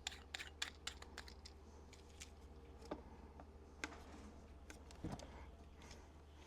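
Scattered light clicks and taps of small parts being handled, several in quick succession at the start and then sparser, over a low steady hum.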